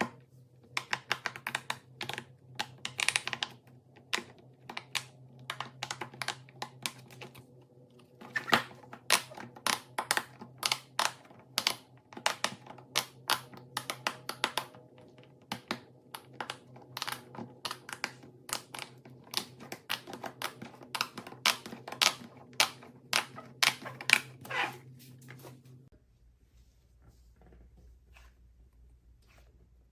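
Rapid, irregular clicking and tapping, like fingers typing on a keyboard, over a faint steady hum; it stops abruptly about 26 seconds in.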